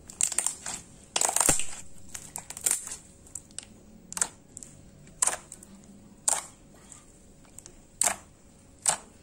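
Glue-based slime being kneaded and squeezed by hand, giving short sharp wet squelches: a quick cluster in the first few seconds, then single squelches about once a second.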